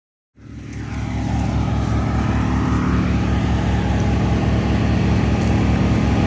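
A large engine running steadily at a constant speed, with a low, even pulsing. It comes in abruptly out of silence and swells over about a second.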